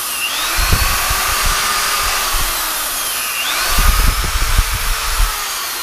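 Electric drill spinning a twisted-wire brush inside a cast-iron transmission housing compartment, the bristles scrubbing and knocking against the casting. The motor's whine dips in pitch twice and recovers, and the sound cuts off suddenly near the end.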